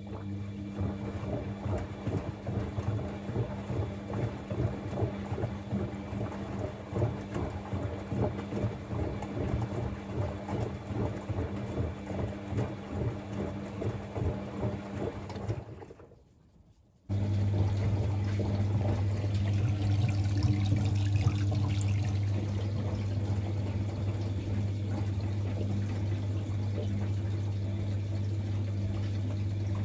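Bosch WFCX 2460 front-loading washing machine mid-wash: the drum turns, sloshing water in uneven surges with a motor hum underneath. It stops about halfway through, and a second later a steady, louder hum starts with running water, typical of the drain pump emptying the tub.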